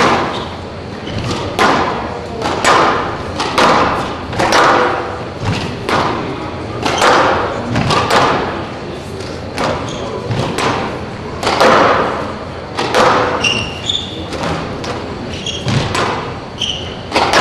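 Squash ball being struck and hitting the walls in a rally, a sharp echoing crack about once a second, with short squeaks of court shoes on the floor in the later part.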